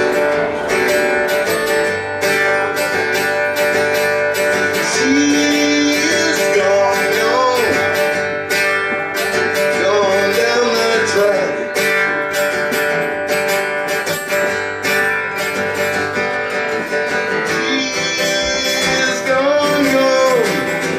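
Live guitar music: a strummed acoustic guitar playing an instrumental passage of a song, with melody notes that bend in pitch a few seconds in and again near the end.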